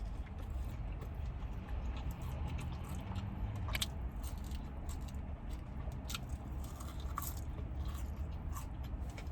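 Close-up chewing of a fried spicy chicken sandwich, with many small crunches and mouth clicks, over a steady low hum.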